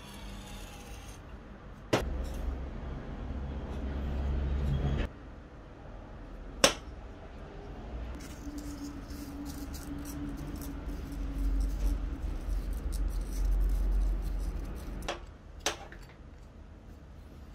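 A brief hiss of an aerosol spray into a brass pipe fitting, then workbench handling noise: brass fittings clicking sharply against a steel surface four times, with low rubbing and bumping from the parts being handled and wiped with a rag.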